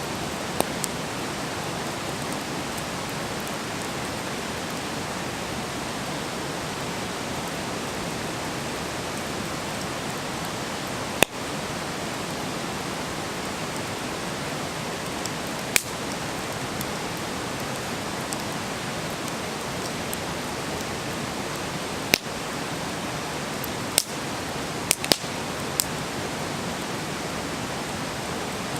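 Wood fire burning with a steady hiss of flames and sharp crackles and pops from the burning wood every few seconds, several close together near the end.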